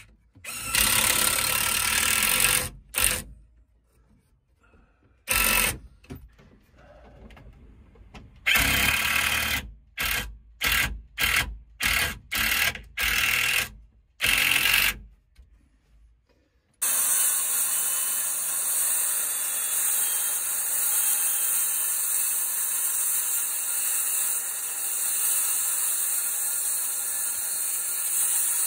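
Black & Decker 20V cordless drill driving screws into 2x4 pine framing: several full runs, then a string of about seven short trigger bursts as a screw is seated. About seventeen seconds in, a circular saw starts cutting a sheet of plywood along a guide rail and runs steadily.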